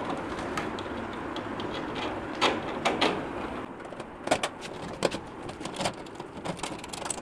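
Handling noise as a plastic louver grill frame is fitted onto a galvanised-steel Lahori air cooler: scattered clicks and knocks of plastic against the metal body. A steady background rush under them drops away about three and a half seconds in.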